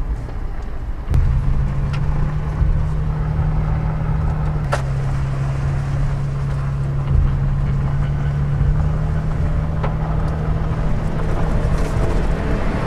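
Off-road vehicle's engine running steadily under load as it drives a dirt road, heard from inside the cab as a low drone that gets louder about a second in. A few sharp knocks and rattles from the rough track.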